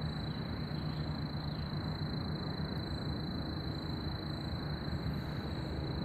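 Steady low rumbling background drone with a constant high-pitched whine above it, unchanging throughout, with no distinct knocks or calls.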